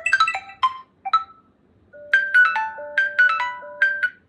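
Smartphone ringtone melody from the phone's speaker: bright marimba-like notes, a quick run of short notes, then after a pause a slower phrase of held notes.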